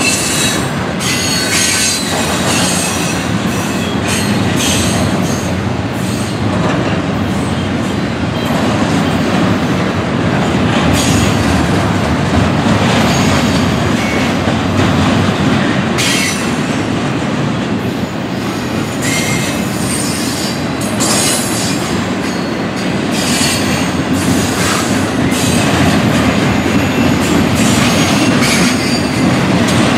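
Double-stack intermodal container train rolling past at a crossing: a loud, steady rumble of well cars on the rails, with high screeches from the wheels coming and going.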